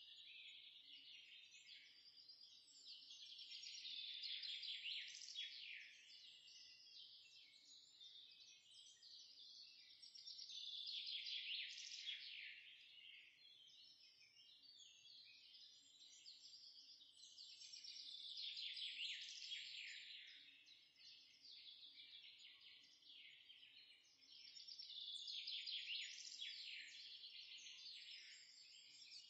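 Faint high-pitched twittering of birds, many quick chirps together, swelling and fading in waves about every seven seconds.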